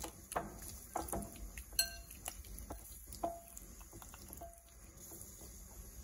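Raw chicken drumsticks being rubbed with masala paste by hand in a glass mixing bowl: soft handling with scattered light knocks and clinks against the glass, several ringing briefly. It goes quieter for the last second or so.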